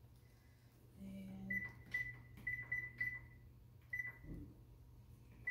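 Electronic beeps from a gas range's oven control panel as its buttons are pressed to add a couple more minutes to the timer: about seven short beeps at one high pitch, a few in quick succession, then single ones about four seconds in and near the end.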